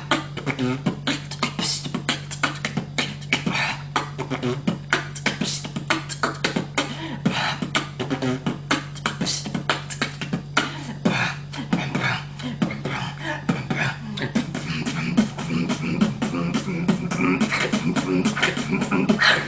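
Solo beatboxing: one person making a fast beat with the mouth, a quick, dense rhythm of sharp drum-like hits.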